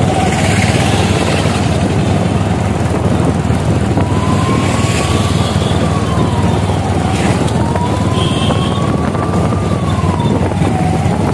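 Steady vehicle noise, with a siren starting about four seconds in and wailing slowly up and down.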